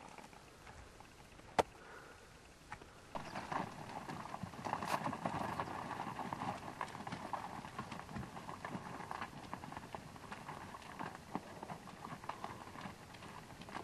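Hooves of a herd of wild mustangs milling on gravelly ground: a dense, uneven patter of clopping and shuffling that starts about three seconds in. A single sharp click comes before it.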